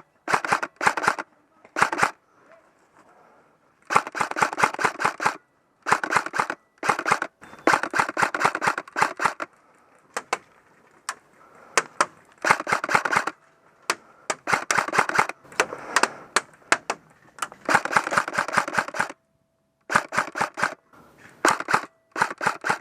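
LCT RK104 airsoft electric rifle firing on full auto in repeated short bursts of rapid clicks, a dozen or so bursts with brief pauses between them. Fainter airsoft fire from other players clicks in some of the gaps.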